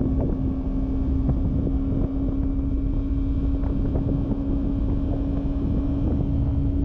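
Yamaha YZF-R3's 321cc liquid-cooled parallel-twin engine running at a steady speed while riding, its note holding one even pitch, under heavy wind noise on the microphone.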